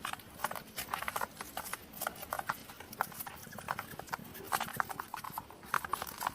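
Hedgehog snuffling: a fast, irregular run of short clicks and sniffs, several a second.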